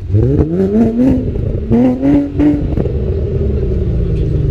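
Volkswagen Golf Mk4 engine accelerating past: the revs climb twice in quick succession, then settle into a long, slowly falling note, with a few sharp clicks along the way.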